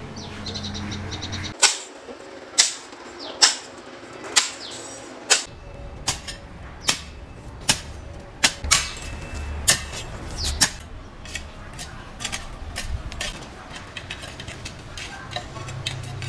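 A series of sharp knocks, about one a second, the loudest in the first half, then lighter, more irregular taps after about ten seconds.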